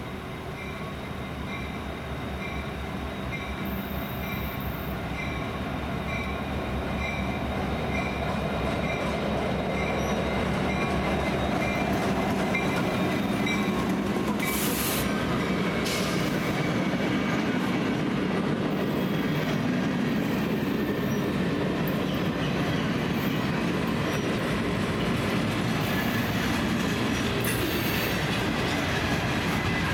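Diesel-hauled freight train passing close by. The locomotive grows louder as it draws near over the first ten seconds or so. Then a string of freight cars rolls past with steady wheel-and-rail noise and a few brief high-pitched wheel squeals.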